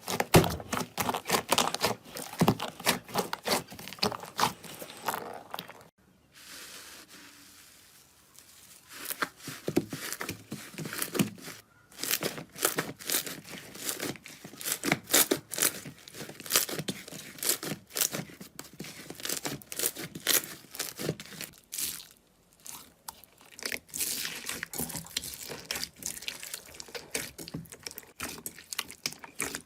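Slime being squished and stretched by hand, making a dense, irregular run of crackling, popping clicks. The clicks thin out to a soft hiss for a few seconds early on and break off briefly twice more, at the joins between clips.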